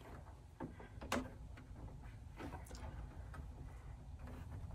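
A few faint, irregular clicks and ticks of a screwdriver and hands on the iMac G3's plastic case as its bottom cover is screwed back on, the clearest click about a second in.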